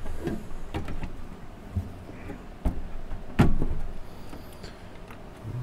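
The steel case of a Heathkit IG-42 signal generator being handled and turned around on a workbench: several separate knocks and scrapes, the loudest about three and a half seconds in.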